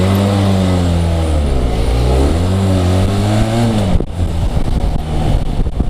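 Benelli TRK 502's 500cc parallel-twin engine running under way, its pitch rising and falling twice with the throttle; about four seconds in it drops to a lower, steadier note.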